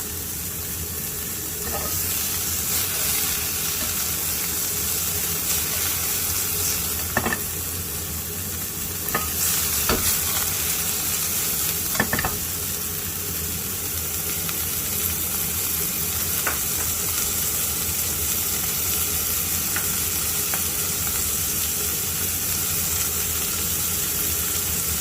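Pork belly frying in a hot frying pan, a steady sizzle, with a few short knocks scattered through it.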